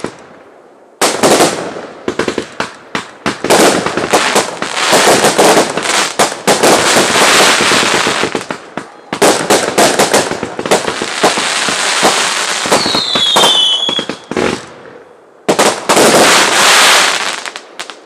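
Aerial fireworks going off in quick succession: bangs and dense crackling from bursting shells, with a short falling whistle about two thirds of the way through. A brief lull comes near the end, before a last crackling volley.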